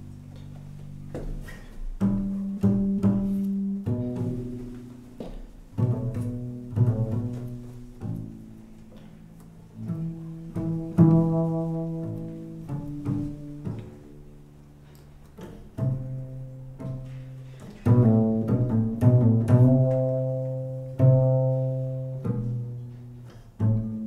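Upright double bass played pizzicato in jazz style: a line of single plucked notes, each starting sharply and ringing away, with quicker runs of notes around the middle and in the second half.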